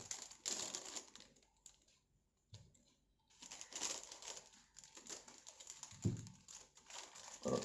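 Plastic takeaway food containers and their wrapping being handled and opened: light, irregular crinkling and clicking, with a short quiet pause.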